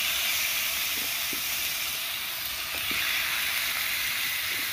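Two peppered steaks sizzling steadily in hot oil in a frying pan, with a few faint pops of spitting fat.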